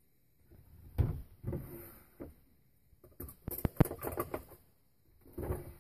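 Knocks, clicks and rustling of things being handled and shifted in a low kitchen cabinet: a knock about a second in, a quick run of clicks in the middle, and another clatter near the end.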